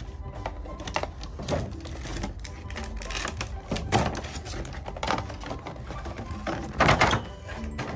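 Plastic packaging bag crinkling and rustling as it is handled, in irregular crackles with a louder crinkle about seven seconds in.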